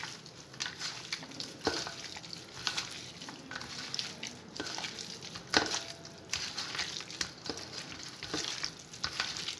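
A hand squishes and turns raw chicken pieces in a wet curd-and-spice marinade inside a stainless steel bowl. The mixing is irregular, with a few sharper knocks of the meat against the bowl.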